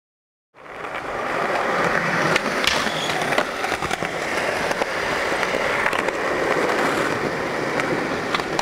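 Skateboard wheels rolling on pavement, starting about half a second in: a steady rough rolling noise with a few sharp clicks and knocks from the board.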